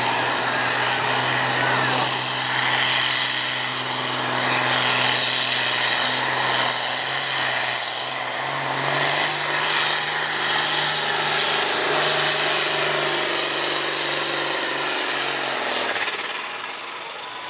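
John Deere farm tractor's diesel engine running hard under load as it drags a weight-transfer pulling sled, with a high whine over the engine note. The engine note steps up in pitch about halfway through, and engine and whine drop away near the end.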